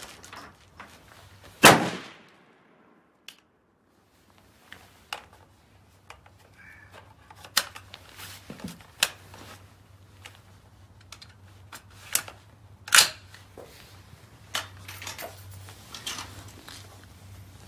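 Two loud rifle gunshots, about eleven seconds apart, with quieter clicks and knocks between them.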